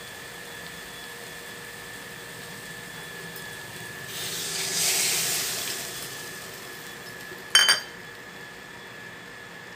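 A little water poured from a steel bowl into a kadai of frying spice masala, hissing and sizzling as it hits the hot oil, swelling and fading over about two seconds. A couple of seconds later, one sharp metallic clink.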